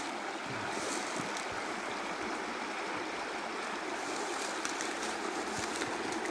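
Shallow rocky stream rushing over stones, a steady even rush of water.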